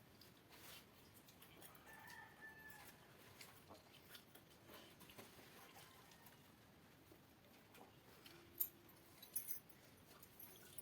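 Near silence with faint scattered clicks and ticks, and a faint chicken cluck about two seconds in.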